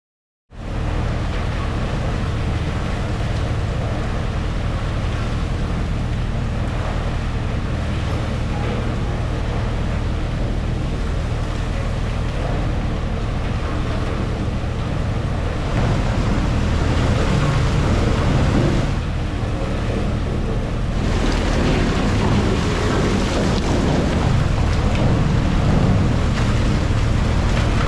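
Heavy tunnel-construction machinery running steadily: a low droning hum under a dense hiss. It grows louder and hissier about three quarters of the way through.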